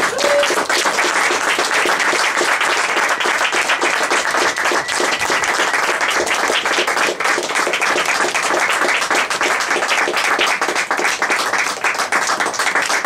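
Audience applauding: many hands clapping in a dense, steady patter that starts suddenly as the tune ends.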